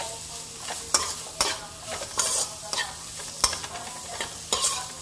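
A metal spatula stirring and tossing shredded cabbage and carrot in a wok over a frying sizzle. The spatula clacks against the pan at uneven intervals, about once or twice a second.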